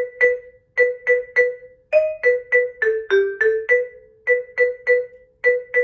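Vibraphone played with yarn mallets: a simple melody of single struck notes, mostly one note repeated in quick pairs, with a few lower notes mixed in, each note ringing briefly.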